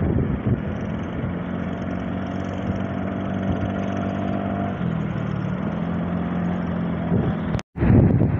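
Tractor's diesel engine running steadily, its pitch dropping a little about halfway through. Near the end the sound cuts out for a moment, then wind buffets the microphone.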